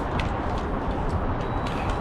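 Steady low rumbling outdoor background noise, with a few faint clicks.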